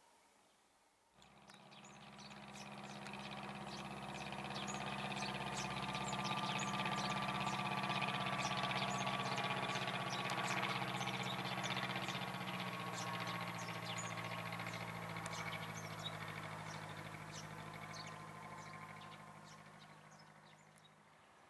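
Cessna 150 light aircraft's four-cylinder Continental O-200 engine and propeller droning steadily as it flies past overhead, coming in about a second in, loudest around the middle and fading toward the end. Birds chirp throughout.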